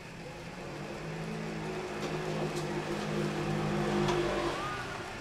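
A motor vehicle's engine running past on the street, with a steady low hum that builds to its loudest about four seconds in and then fades.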